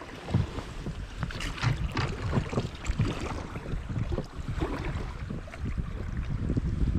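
River water splashing and sloshing around a raft, with irregular knocks and a steady low rumble of wind on the microphone.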